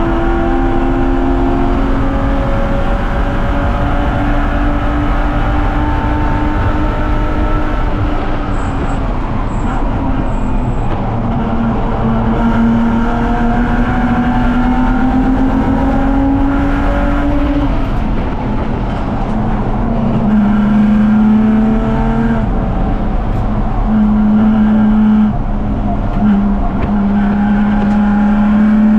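BMW 330Ci race car's 3.0-litre straight-six at high revs under hard acceleration. The pitch climbs slowly and drops back at each upshift, then holds high and steady near the end.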